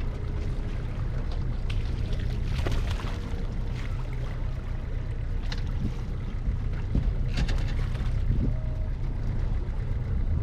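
Boat on the water with a steady low rumble, with a few short knocks and rattles scattered through it.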